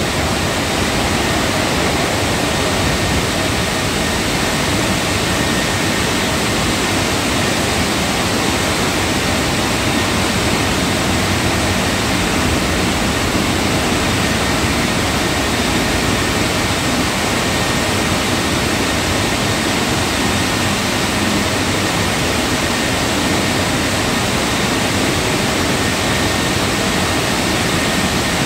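Tammermatic T700 Lux touchless rollover car wash running over a car: a steady, even rushing noise with a faint high tone held throughout.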